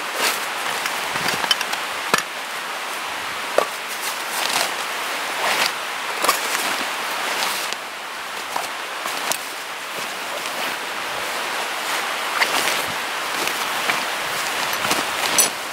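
Rustling, crinkling and light knocks of camping gear being handled: a canvas backpack, stuff sacks and a nylon groundsheet over dry leaves. There are many short, sharp rustles and clicks over a steady hiss.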